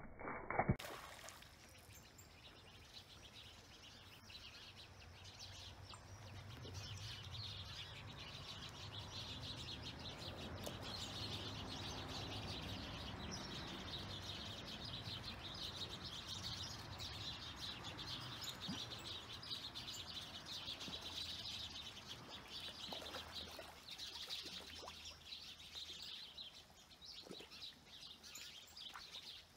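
A brief loud splash about half a second in as a fish breaks the pond surface, then a steady background of birds chirping.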